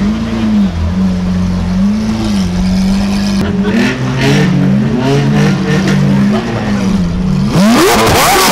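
Lamborghini Aventador's 6.5-litre V12 on a decat Capristo exhaust idling, its note rising and falling gently about once a second. Near the end it is revved hard in a quick rising sweep, the loudest part.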